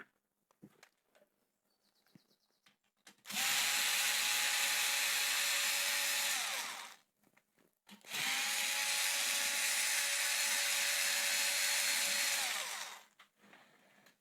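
A small handheld power tool's electric motor running in two bursts of a few seconds each, with a steady whine over a loud hiss. Each run winds down as it stops.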